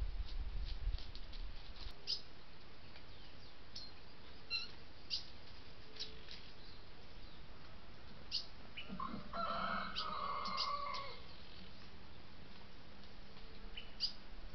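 Wild birds chirping, short high calls scattered throughout, with a longer, louder call about nine to eleven seconds in. A low rumble runs until about two seconds in.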